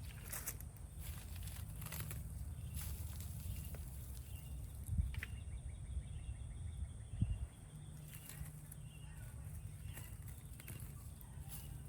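Potato foliage and weeds being pulled up by hand, rustling and crackling, with two dull thumps about five and seven seconds in. A steady low rumble lies underneath.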